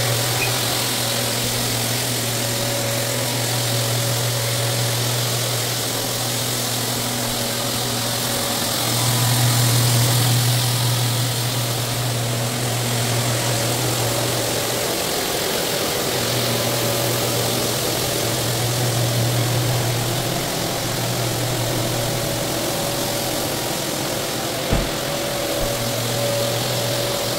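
Rotary floor buffer screening a hardwood floor, its motor running with a steady hum that swells and eases slightly as the machine is swung, over the hiss of its attached dust-extraction vacuum. A single knock sounds near the end.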